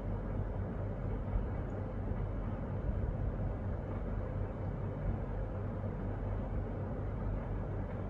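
Steady low background rumble and hum with a faint noise haze, unchanging throughout.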